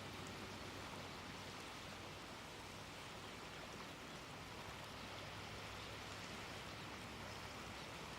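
Faint, steady wash of small waves on the seashore, with no bird calls.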